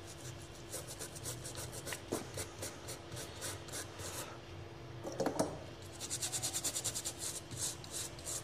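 Brush scrubbing a corroded, water-damaged phone motherboard: repeated scratchy back-and-forth strokes, with a quick run of rapid strokes about six seconds in.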